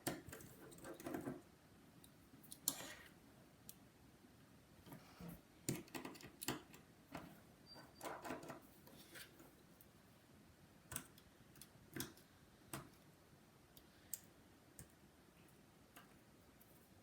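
Faint, irregular small clicks and taps of a precision screwdriver working out the screws of a first-generation iPhone SE's display-cable bracket. The clicks are bunched in the first half and grow sparser toward the end.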